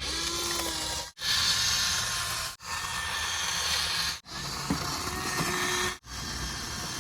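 Steady hissing noise in short spliced stretches, each cut off abruptly, with breaks about every one and a half seconds.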